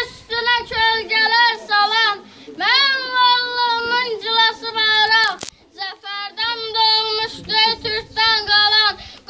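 Young schoolchildren singing a song without accompaniment, in high held notes, with two short breaks for breath about two and a half and six seconds in.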